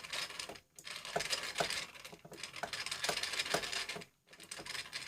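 Screwdriver turning out a small screw from a plastic computer case cover, with light scraping and a series of small clicks about twice a second.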